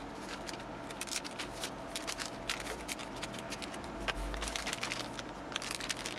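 Metallised anti-static packaging bags crinkling and rustling as they are handled, a dense run of small crackles and clicks, with a soft low bump about four seconds in.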